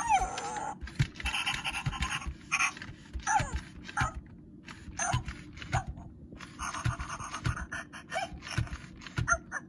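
FurReal Friends JJ My Jumping Pug toy playing recorded puppy sounds through its small speaker: repeated bursts of panting about a second long, broken by short whimpering yips that slide down in pitch. Light knocks from its motorised mechanism come through as the head moves.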